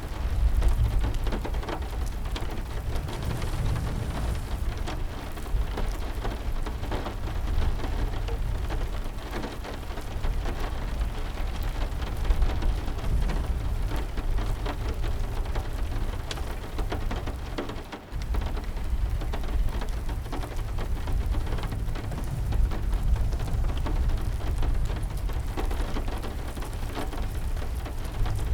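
Steady heavy rain with a continuous low rumble beneath it, which drops out briefly about two-thirds of the way through.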